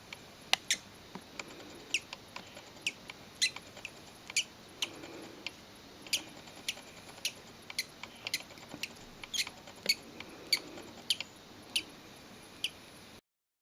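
A hatching chick peeping: short, high chirps, about two a second at irregular spacing.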